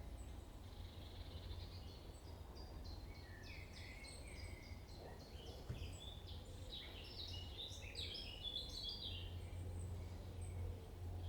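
Small birds chirping, a quick run of short high calls that grows busiest in the middle, over a steady low rumble.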